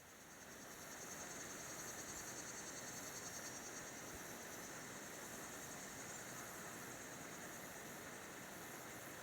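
Insects trilling steadily, a fast high-pitched pulsing buzz, over a faint steady hiss; it fades in over the first second.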